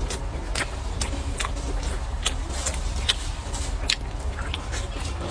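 Close-miked eating: a person biting and chewing food, with irregular sharp crisp clicks about every half second. A steady low rumble runs underneath.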